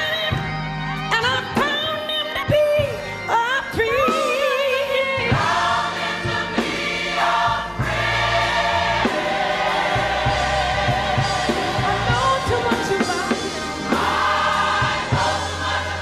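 Gospel choir singing with band accompaniment. A single line slides and wavers in runs with vibrato through the first five seconds, then the choir comes in on full held chords over a steady bass.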